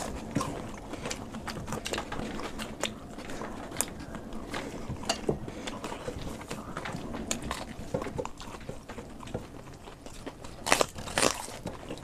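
Close-up eating sounds: chewing and biting into crisp fried snacks such as a potato chop, a steady run of small crunches and mouth clicks, with two louder crunches near the end.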